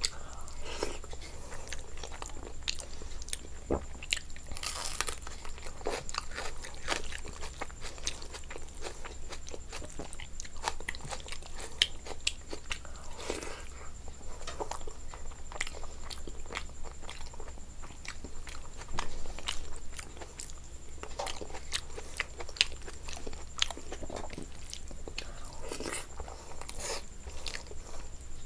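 A person biting and chewing food close to the microphone, with crunching and wet mouth clicks at an irregular pace.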